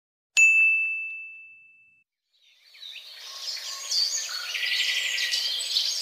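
A single 'ding' chime, struck once about half a second in, rings out with one clear tone that fades over about a second and a half. After a short silence, birds start chirping and singing about three seconds in and carry on to the end.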